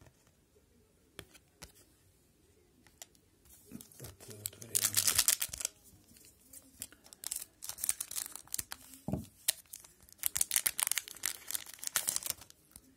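Plastic-foil wrapper of an Upper Deck Series One hockey card retail pack being torn open and crinkled by hand, in loud bursts of rustling from about four seconds in, pausing briefly and resuming until near the end.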